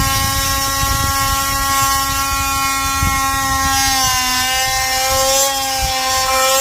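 Two-stroke chainsaw running at high revs while cutting a log, its pitch sagging slightly about four seconds in as the chain takes load, then recovering.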